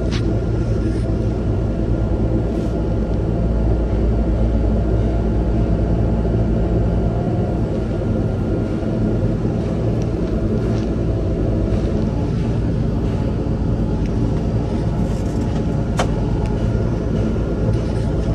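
Engine of a Terex Quadstar running steadily, with a few short clicks, the sharpest near the end.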